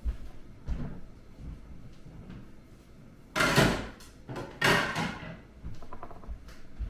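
Kitchen drawers and cupboard doors being opened and shut while things are put away: a couple of knocks, then two loud half-second sliding sounds about a second apart, and light knocks near the end.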